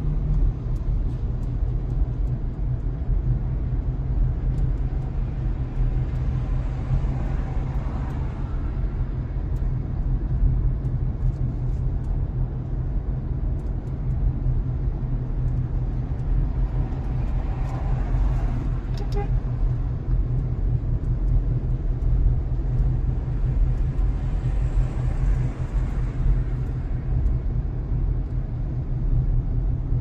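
Steady low rumble of a vehicle on the move, heard from inside the cabin: engine and road noise.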